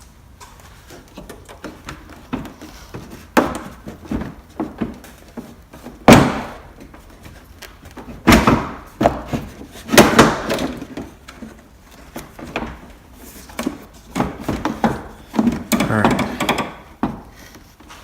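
Irregular plastic knocking, thudding and rattling as a 2010 Chevy Cobalt's headlamp assembly is worked loose and pulled out, with a few loud knocks near the middle.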